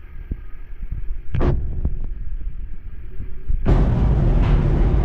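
Passenger ferry's low engine rumble with a few knocks and a short clatter about a second and a half in; about three and a half seconds in, a louder rushing noise suddenly comes in over the rumble.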